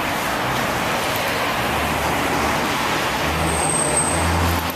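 City street traffic noise, with the low rumble of a heavy vehicle's engine growing stronger about three seconds in and a brief high squeal near four seconds.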